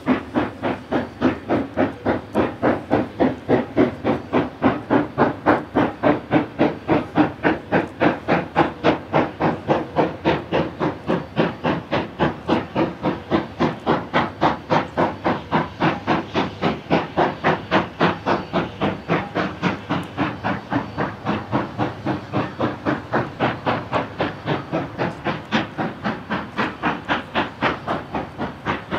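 A pair of New Zealand Railways J-class 4-8-2 steam locomotives working hard on a climb, their exhausts giving a steady, rapid chuffing of several beats a second with steam hiss.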